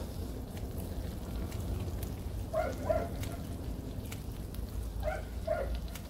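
Pork belly and pork neck sizzling on a cast-iron cauldron-lid grill, with a steady fine crackle and scattered pops of fat, over a low wind rumble. Short high calls come twice, about three seconds and five seconds in.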